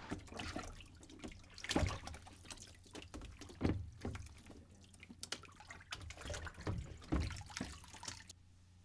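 Dishes being hand-washed in a sink of soapy water: irregular sloshing and splashing with a few louder splashes. It cuts off suddenly just before the end.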